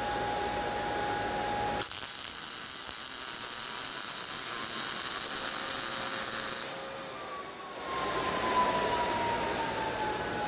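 MIG welding arc hissing steadily for about five seconds while a tack weld is laid on a square-tube steel table frame, starting about two seconds in and cutting off sharply. Before and after it a steady hum with a held tone runs, and in the later part the tone slowly falls in pitch.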